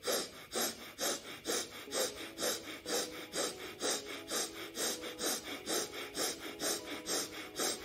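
A man breathing rapidly and forcefully through one nostril while the other is held shut, a fast, even rhythm of about two or three breaths a second.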